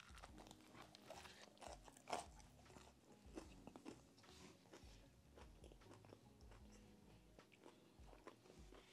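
Faint crunching and chewing of a bite of crispy fried chicken sandwich with lettuce and tomato, in scattered short crackles, the loudest crunch about two seconds in.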